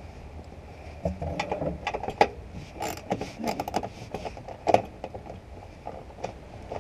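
Socket ratchet being worked on a bolt in the plastic underbody splash shield: irregular clicks and scrapes, bunched most densely about halfway through.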